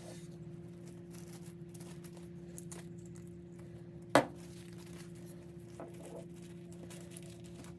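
Faint rustling and crinkling of plastic wrap being handled, over a steady low hum, with one sharp click about four seconds in.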